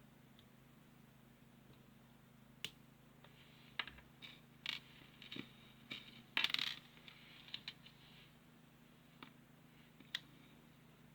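Small plastic building-block pieces clicking and clattering as they are handled and fitted together: a string of light taps and short rattles, with the loudest clatter about six and a half seconds in.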